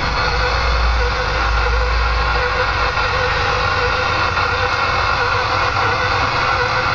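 Steady in-cab noise of a Kenworth T2000 semi-truck driving in heavy rain: engine running, with an even hiss of rain and wet road. A deeper rumble in the first two seconds or so fades as an oncoming truck passes.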